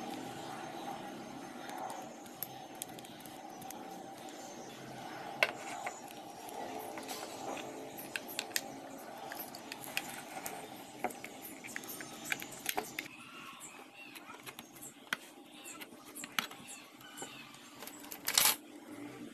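Small plastic and metal parts clicking and knocking as they are handled and fitted together, over a steady low hum, with one louder short scraping noise near the end.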